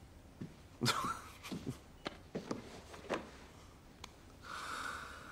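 Soft footsteps walking past, about two steps a second, with a short hiss near the end.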